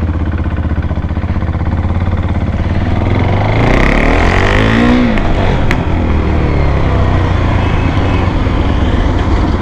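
KTM Duke 390's single-cylinder engine running through an aftermarket Greasehouse Grunt V2 exhaust as the bike is ridden at low speed, with a brief rise and fall in pitch about four seconds in and a single sharp click shortly after.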